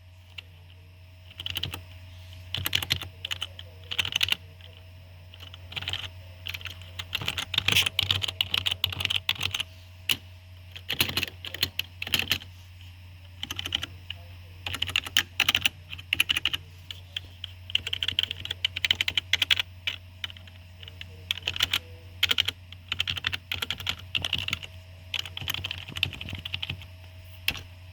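Keyboard of an old Windows XP computer being typed on, very clickety-clackity: quick runs of keystrokes in bursts with short pauses between them.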